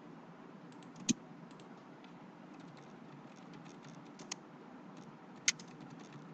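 Computer keyboard typing: scattered light key clicks, with three sharper strokes standing out, over the steady hum of a ceiling fan.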